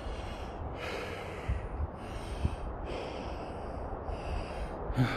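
A man breathing hard from the effort of hiking uphill, one breath about every second, with a few soft footsteps on a muddy trail.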